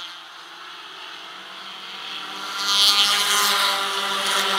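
Four-cylinder stock car race cars running on a short oval track at steady revs. The engine sound grows loud about two and a half seconds in as a car passes close by.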